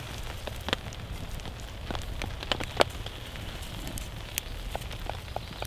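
Steady rain with irregular, close drops tapping sharply. The loudest tap comes just under three seconds in.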